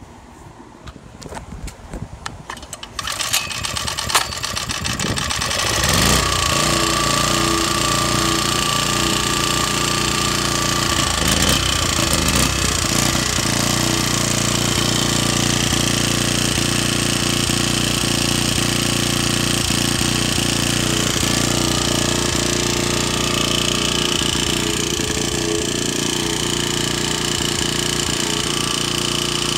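Ironton 1800 W gasoline portable generator starting for the first time: a few clicks as its controls are worked, then the small engine catches about three seconds in and settles into a loud, steady run by about six seconds.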